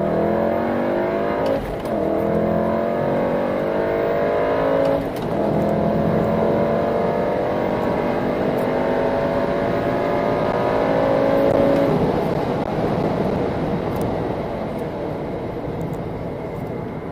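Volkswagen Golf R's turbocharged 2.0-litre four-cylinder engine, running a JB4 piggyback tune, under hard acceleration from inside the cabin. It revs up through the gears with two brief dips at gear changes, a little over a second in and about five seconds in. The pitch then climbs steadily until about twelve seconds in and falls away as the throttle is lifted.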